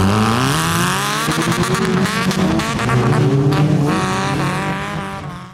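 A demolition-derby car's engine revving, rising and falling in pitch, with a run of sharp cracks in the middle, then fading out at the end.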